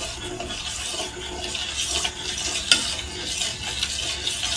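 A steel spoon stirring thin packet soup in a metal pot on the stove as it heats toward the boil: a continuous uneven scraping against the pot, with one sharp clink a little past halfway.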